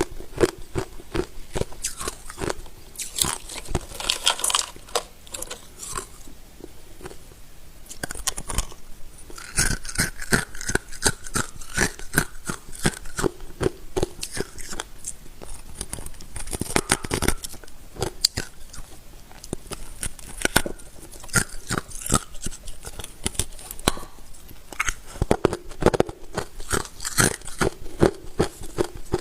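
Hard ice being bitten and chewed close to the microphone: rapid sharp crunches and cracks, several a second, with a few brief pauses between mouthfuls.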